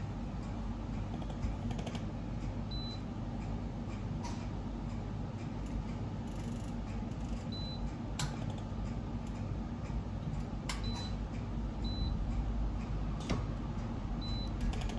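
Short high beeps from a wax injector's Omron touchscreen control panel as its keypad is tapped, about five beeps spread through, with a few sharp clicks of the taps. A steady low machine hum runs underneath.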